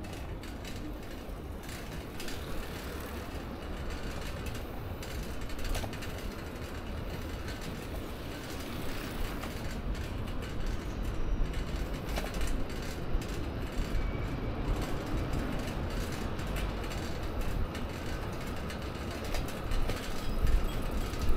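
A city bicycle with a front wire basket being ridden over asphalt: the basket and frame rattle and click steadily, under a low rumble of wind on the microphone.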